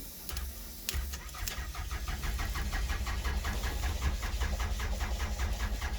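2001 Toyota Camry's engine cranking on the starter from about a second in, in an even rhythm of about five or six beats a second, without catching. This is the car's no-start: it keeps whining over but never fires.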